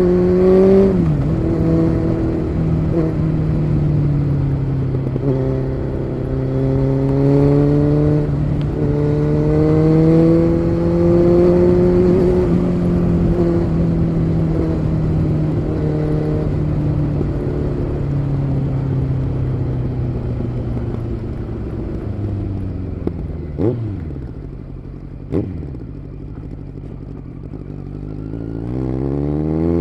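Kawasaki Z900's inline-four engine through an SC Project aftermarket exhaust, ridden on the road. The pitch drops briefly about a second in, then rises and falls as the throttle varies. Near the end it eases off and quietens, with two short sharp sounds, then revs up steeply.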